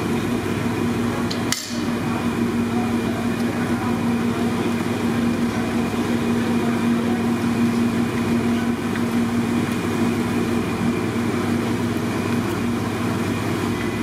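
Steady mechanical drone with a constant low hum note, dipping briefly about one and a half seconds in.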